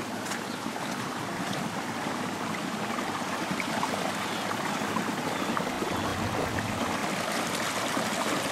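Storm runoff rushing out of a road drainage pipe and running over rocks, a steady rush of water that grows gradually louder.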